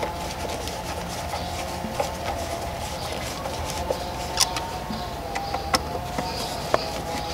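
Scattered light clicks and taps of screws being tightened on a pool pump's drive panel, over a steady background hum.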